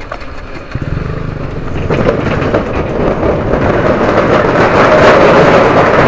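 Motor vehicle engine running on a rough off-road track, coming in about a second in and growing steadily louder, with a rushing noise building alongside it.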